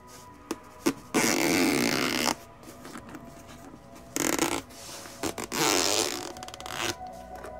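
Zipper being pulled around a fabric-covered hard-shell carrying case to open it: three long rasping drags, the first and last over a second each, with a few short clicks of the zipper pull between them.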